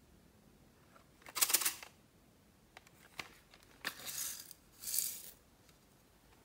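A plastic toy makeup compact handled and opened, with a few sharp clicks, and three bursts of rustling as pink glitter flakes are tipped out onto loose sequins and glitter in a glass dish.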